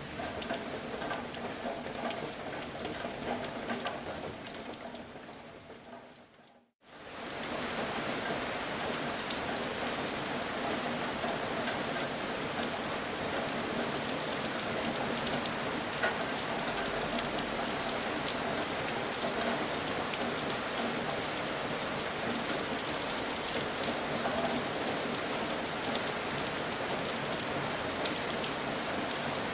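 Steady rain falling and pattering on surfaces. About a quarter of the way in, the rain fades out to a moment of silence, the join of an edit or loop, then fades back in and holds steady.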